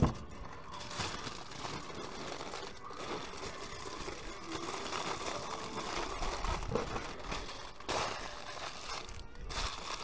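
Aluminium foil crinkling and crumpling as it is folded and scrunched by hand around a potato, with a brief sharp knock right at the start.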